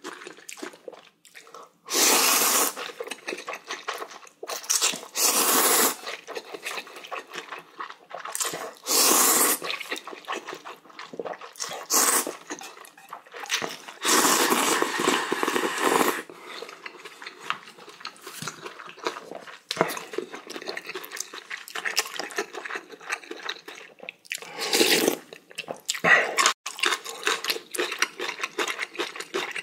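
A person slurping instant ramen noodles and broth in several loud slurps, with wet chewing between. About halfway through comes the longest slurp, about two seconds of broth drawn from a ladle.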